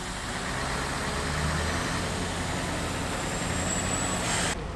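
Heavy-haulage ballast tractor unit's diesel engine running as the truck drives slowly past, with road and air noise over the low engine note. The sound cuts off suddenly near the end.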